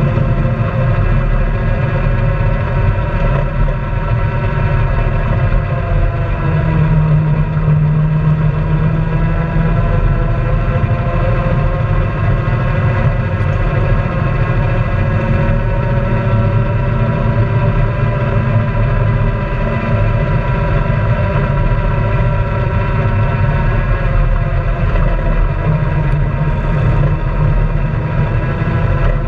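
Honda Pioneer 700-4 side-by-side's single-cylinder engine running steadily while the vehicle drives along a gravel trail. Its pitch dips and rises slightly a few times.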